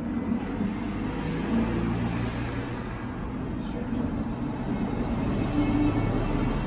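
Steady low rumbling background noise coming over a video call, with no distinct events.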